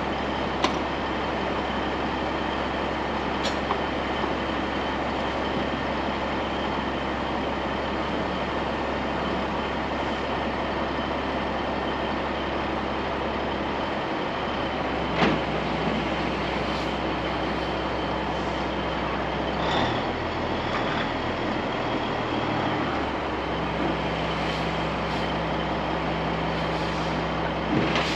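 Diesel semi-truck engine idling steadily, with a few sharp knocks over it.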